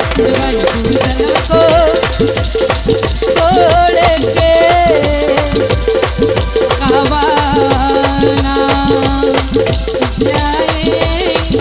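Qawwali accompaniment: a harmonium playing a held, wavering melody over a fast, steady dholak and tabla beat.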